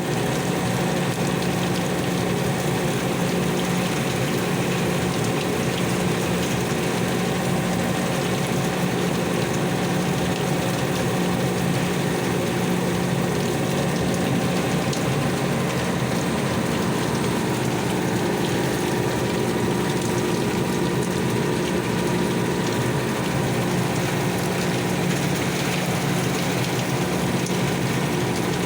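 Very heavy rain falling steadily, as an even rushing noise with a steady low hum underneath.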